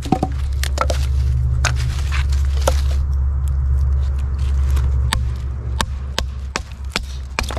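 Gerber LMF II knife working a piece of fatwood: about ten sharp clicks and cracks of the blade in the wood at uneven intervals, over a steady low rumble.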